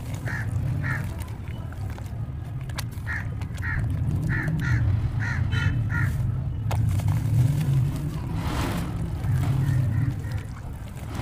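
Wet sloshing and squelching of hands kneading and crushing soft cement lumps in a bucket of grey watery slurry, with a splashy burst a little past the middle. A bird calls in short repeated notes, in twos and threes, through the first half.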